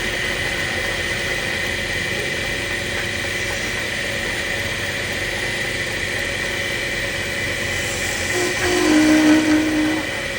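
Woodturning lathe running steadily, giving a constant motor hum with fixed tones. About eight seconds in, a louder sound with a low steady tone comes in for about two seconds, then drops back.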